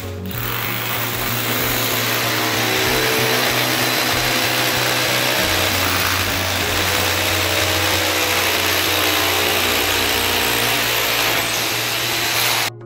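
Corded electric drill running steadily as it bores into the wall at the joint with the floor, then cutting off abruptly near the end.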